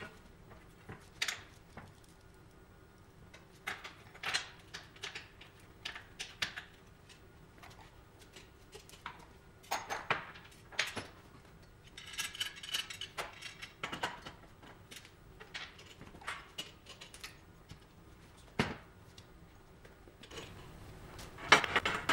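Scattered clinks and taps of small metal hardware being handled and set down on a steel plate lying on a steel work table, with a quick cluster of louder clanks near the end. A faint steady hum runs underneath.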